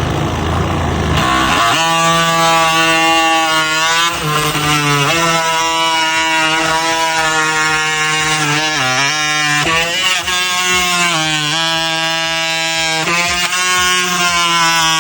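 DeWalt DCS354 20V cordless oscillating multitool running with a steady buzz, its pitch sagging briefly several times as the blade bites into the wood in short plunge cuts.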